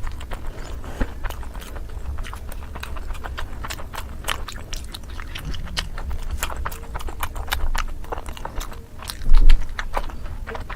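Close-miked chewing of momo dumplings: wet, irregular mouth clicks and lip smacks several times a second. About nine seconds in, a single loud low thump stands out.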